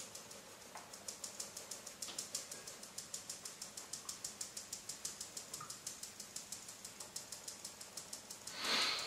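Fine-mesh metal sieve being tapped gently and rapidly by hand, about five light taps a second, to sift cocoa powder through into a glass bowl. A short sniff near the end.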